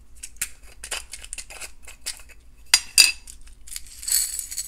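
Small glass and stone beads clicking and rattling inside a small clear plastic container as it is handled and opened, with two sharper clicks about three seconds in and a short rush of rattling near the end.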